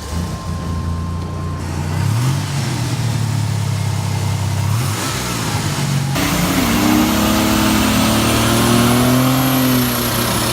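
Buick GNX's 3.8-litre turbocharged V6 running, its pitch rising and falling twice in quick blips. About six seconds in the sound cuts abruptly to a higher-pitched run of the same engine, with a faint high whistle over it.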